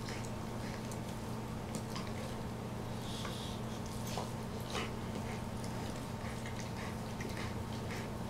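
Two dogs licking and mouthing each other's faces in play: a string of soft, wet smacks and clicks of tongues and jaws, over a steady low hum.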